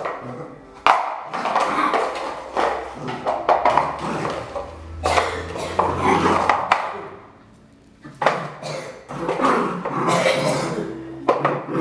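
A red merle Border Collie barking repeatedly, in a run of sharp barks with a short pause near the middle.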